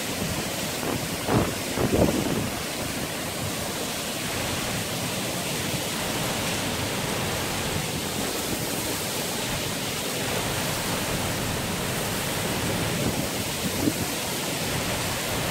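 Storm of heavy rain and strong wind: a steady hiss of rain and wind, with wind buffeting the microphone in two louder gusts about one and two seconds in.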